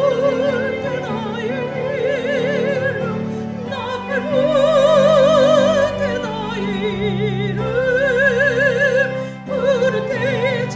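Operatic soprano singing a hymn, holding long notes with a wide vibrato over instrumental accompaniment, with a brief break between phrases near the end.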